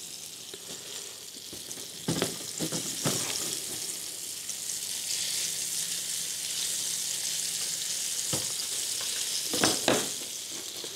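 Sardines sizzling in hot oil in a frying pan, the hiss growing louder after about two seconds. Several sharp clicks and knocks of metal tongs against the pan and dish come as the fish are turned and lifted out.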